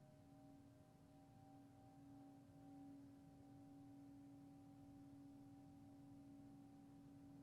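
Tibetan singing bowl ringing faintly: a low steady hum with several higher, uneven overtones, swelling a little about two to three seconds in.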